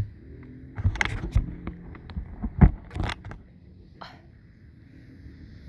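Clicks, knocks and scraping of the camera being handled and moved about, the loudest knock about two and a half seconds in. Under them is a faint steady hum from the RC plane's electric motor during its low pass.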